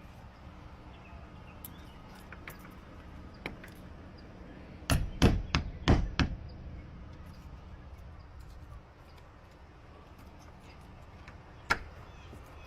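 A few faint clicks, then a quick run of about five sharp clacks and knocks about five seconds in, and one more sharp knock near the end: lockout tools and door lock hardware being worked.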